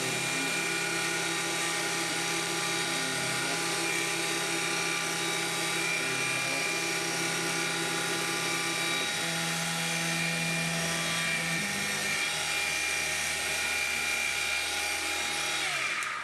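CNC-converted Sieg mini mill running, its spindle motor making a steady whine while the lower motor tones shift several times as the axes move. Near the end the spindle winds down, its pitch falling. The axis motors are set to half the correct steps (1,000 instead of 2,000).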